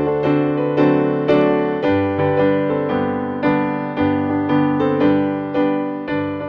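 Solo piano music: single notes and chords struck about twice a second, each left to ring and fade.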